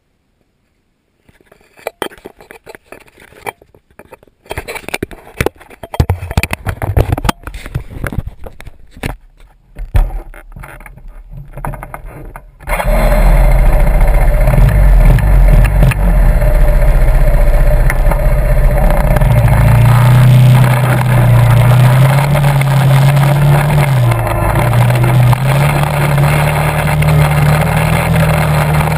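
Scattered knocks and clicks for about twelve seconds, then a Bombardier quad's (ATV) engine runs loud as the quad drives off. Its pitch rises and falls with the throttle.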